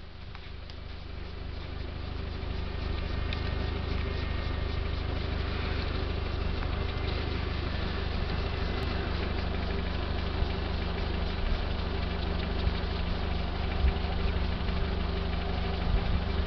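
Car engine idling steadily, a low even hum, swelling over the first two seconds.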